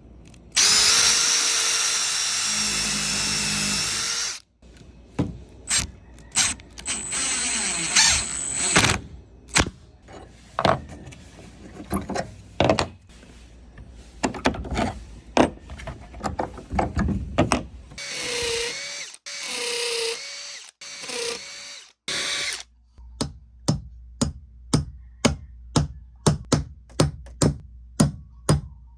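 Power drill driving new screws into a door hinge, running in bursts: a long steady run near the start, then shorter runs with the motor's pitch sagging and recovering under load. It ends in a series of sharp, regular clicks about two a second.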